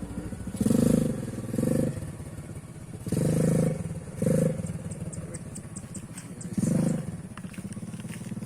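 ATV engine running, rising in five short surges as the throttle is opened and let off, settling back to a lower running sound in between.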